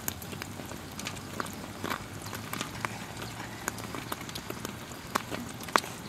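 Irregular small clicks, taps and crackles of hands handling a green vegetable over a bowl, with a louder sharp crack just before the end as it is raised to the mouth.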